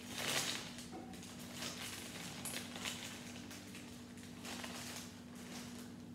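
Clear plastic Lego parts bag rustling and crinkling in the hands in irregular bursts, the loudest about a third of a second in, over a faint steady low hum.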